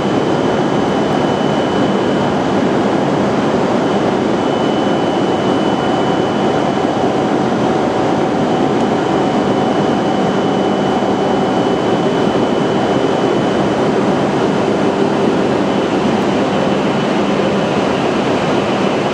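Hokuriku Shinkansen E7/W7-series train noise: a steady, loud rushing sound that neither builds nor fades, with a thin high whine held through it.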